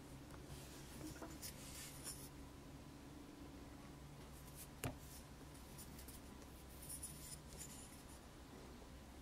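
Faint scraping and rubbing of a metal ball-tipped sculpting tool worked into soft modeling clay, in short bouts, with one sharp click about five seconds in, over a steady low hum.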